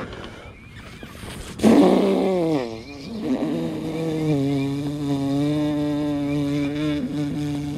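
A man's long drawn-out groan of frustration: a loud cry about two seconds in that slides down in pitch, then a low held moan lasting several seconds. It is his reaction to a big bass coming off the hook.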